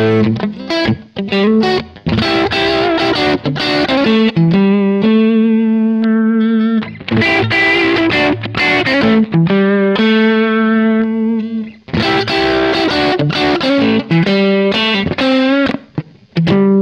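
Electric guitar with Häussel TE Broad pickups, played through a mildly overdriven amp: quick picked single-note lead phrases, broken twice by a long held note shaken with vibrato.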